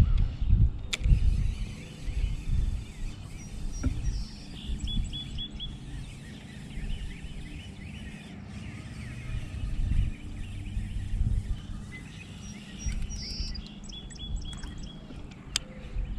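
Outdoor wind noise rumbling unevenly on the microphone, with a small bird singing a short phrase of quick high chirps twice, several seconds apart.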